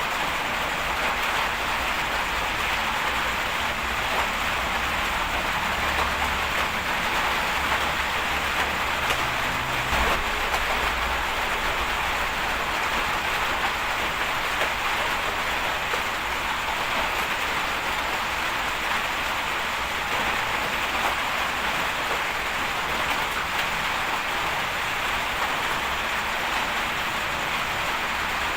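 Steady hissing noise, strongest in the mid-highs, with a brief low rumble about six seconds in and again about ten seconds in.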